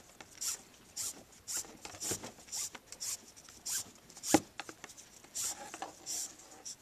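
550 paracord being pulled hand over hand through a bracelet buckle clip to even out its two ends: a run of short swishes, about two a second, with a sharper knock a little past the middle.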